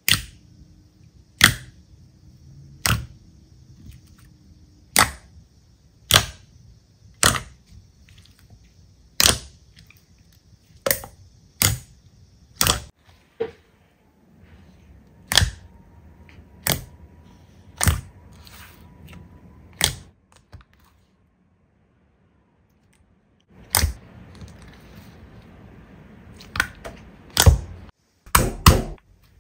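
Slime being pressed and poked by hand, giving sharp pops about once a second, with a short silent break in the middle and a quick cluster of pops near the end.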